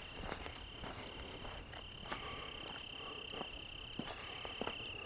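A cricket chirring steadily in the field, one high continuous trill with a few brief breaks. Irregular light crackles of footsteps through dry vegetation sound underneath.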